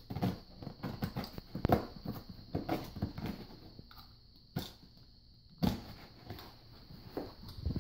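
A box and its packing being handled and opened by hand: irregular knocks, scrapes and rustling, busiest in the first few seconds, with a few sharper single knocks later.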